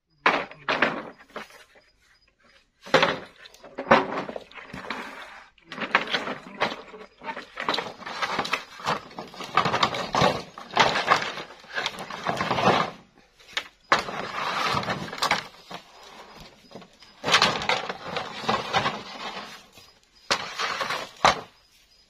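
Bamboo poles and split bamboo strips clattering and knocking together as they are picked up and dropped onto a pile, a long run of irregular hollow knocks with a few brief pauses.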